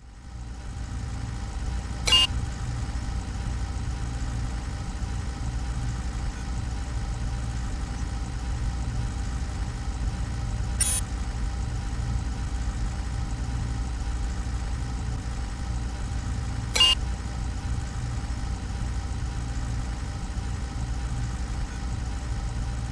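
A steady low rumble like a running engine, with a faint hiss over it, broken three times by a short sharp knock.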